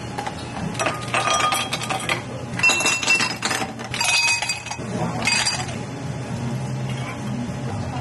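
Ice cubes tipped from a scoop into glass tumblers, clinking and rattling against the glass in several quick bursts over about four seconds, then settling into a softer stretch.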